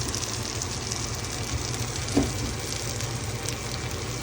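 Flour-dredged tilapia frying in oil in a pan, a steady sizzle, with one short knock about two seconds in.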